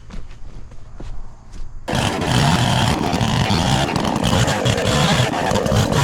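A few soft footsteps, then about two seconds in a skid steer's engine comes in suddenly and runs loudly and steadily.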